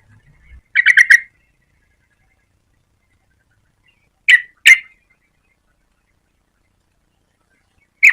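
Yellow-vented bulbul calling in short runs of quick notes: about four notes a second in, two notes a few seconds later, and another quick run right at the end.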